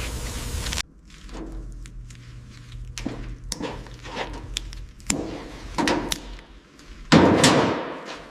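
A series of knocks and clicks in a small room. A steady noise cuts off suddenly just under a second in, heavier thunks come about five and six seconds in, and a louder clatter follows near the end.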